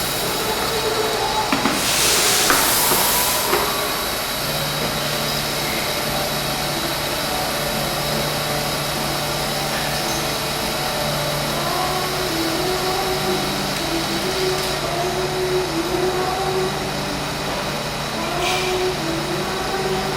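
Steady machine noise and hum from an automated laser-welding cell with automatic part loading, with a loud hiss about two seconds in and a shorter hiss near the end.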